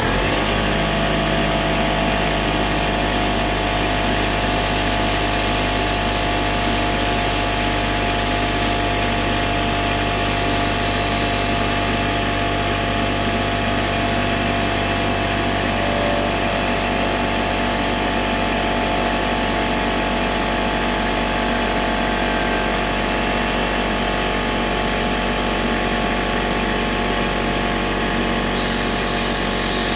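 Air compressor switched on and running steadily, its motor humming loudly. A higher hiss swells for several seconds after about five seconds in and again near the end.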